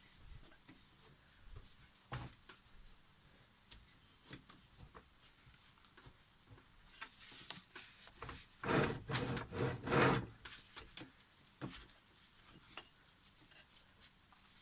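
Hand work on mitre saw parts during a cleanup: scattered light clicks and knocks, with a louder stretch of rubbing and scraping about halfway through.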